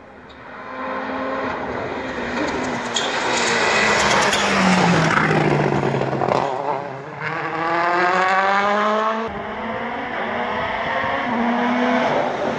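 Citroën C3 WRC rally car's 1.6-litre turbocharged four-cylinder engine driven hard along the stage. Its pitch climbs and drops again and again as it changes gear, and a few sharp cracks come through early on.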